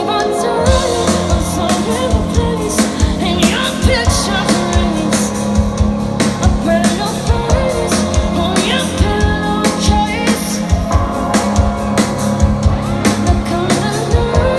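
Live rock band playing at full volume: a lead vocalist sings over a steady drum beat, guitars and synths.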